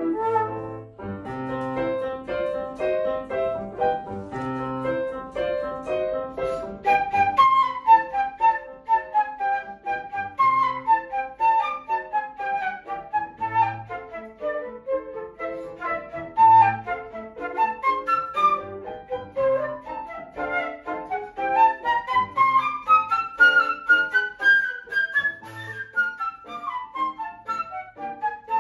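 Concert flute and upright piano playing a classical duet. After steadier, held flute notes at the start, the flute moves into quick running notes, climbing in a long rising line and coming back down near the end, over piano chords.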